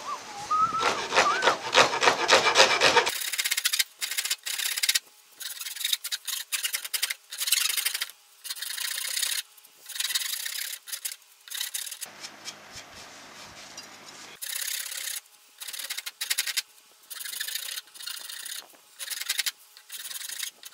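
A metal hand file rasps along the edge of a laminated hardwood guitar neck, shaping the headstock. It is louder and continuous for the first three seconds, then goes on in separate short scraping strokes with brief pauses between them.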